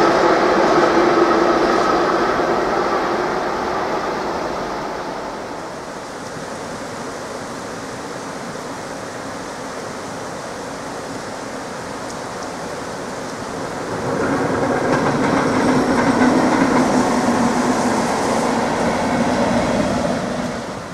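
Freight train of swap-body wagons rolling by on the tracks, its rumble fading away over the first several seconds. About two-thirds of the way in, a second train led by a locomotive comes up and runs loudly past until just before the end.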